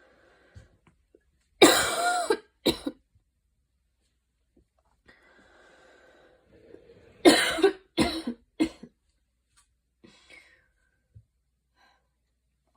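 A woman coughing during an asthma flare, in two bouts. First a long, harsh cough about two seconds in followed by a short one, then a faint drawn breath, then a run of three coughs around seven to nine seconds.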